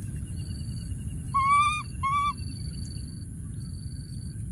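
Baby monkey calling twice, two short high-pitched cries about half a second apart, the first slightly longer. Behind them, steady high-pitched tones come and go.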